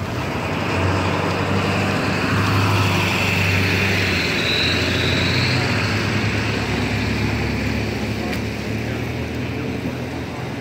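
Car driving: a steady low engine hum with road noise, swelling about a second in and then holding steady.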